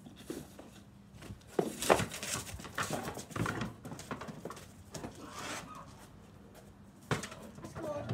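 A Doberman–Shepherd cross and a person scuffling over a basketball on paving: quick footsteps, paws and the ball thudding in a run of sharp knocks, loudest about two seconds in, with another knock about seven seconds in.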